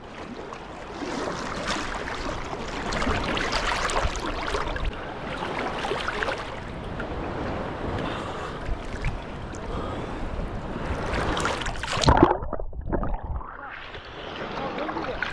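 Sea water splashing and sloshing close against a GoPro held at the surface by a swimmer. About twelve seconds in comes one loud splash, after which the sound turns dull and muffled for about two seconds before the splashing returns.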